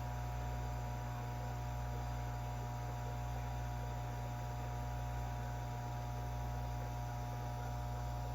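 Steady electrical hum, low and unchanging, with a few fainter steady higher tones above it.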